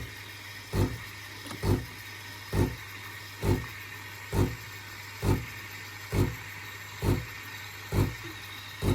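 Sage (Breville) Barista Touch steam wand automatically texturing oat milk: a steady hiss over a low hum, with the pump pulsing about once a second.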